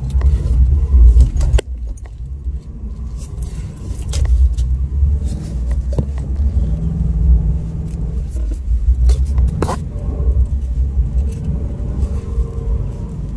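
Subaru Baja's flat-four engine running hard under load as the car charges up a snowy driveway into a snowbank, a heavy low rumble from the cabin. It is loudest in the first second or so. Several sharp knocks and jolts from the body, and a jingle of keys, sound as it hits and pushes through the heavy wet snow.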